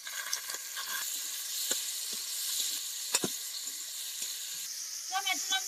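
Chopped tomatoes sizzling as they hit hot mustard oil with onions in a kadai, a steel spatula stirring and scraping against the pan, with one sharper scrape about three seconds in.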